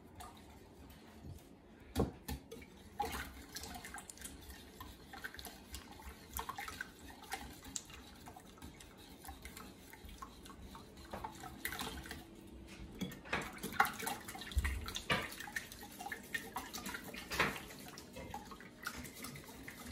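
Wire whisk beating a thin mixture of buttermilk, melted butter and eggs in a ceramic mixing bowl: liquid sloshing with many small irregular clicks of the wires against the bowl, and a sharper knock about two seconds in.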